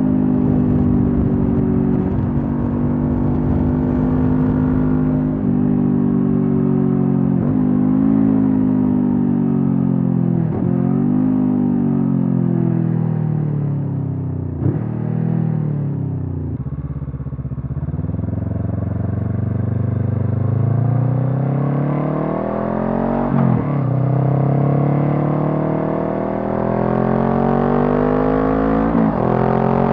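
A Honda CB500F's parallel-twin engine running through a Mivv GP Pro stainless slip-on exhaust while riding. The revs fall away through the middle with a gear change, then climb again in the second half. Each upshift there shows as a quick drop in pitch.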